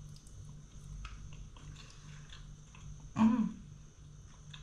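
A person chewing a mouthful of chicken curry and rice, with soft wet mouth clicks, then a short voiced 'mm' of approval about three seconds in.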